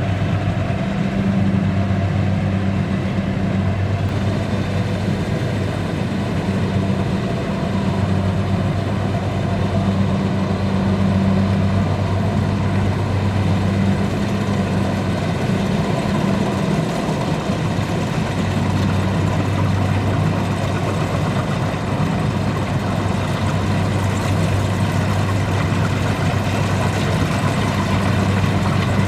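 Kubota DC-70 combine harvester's diesel engine running steadily with a deep, even hum.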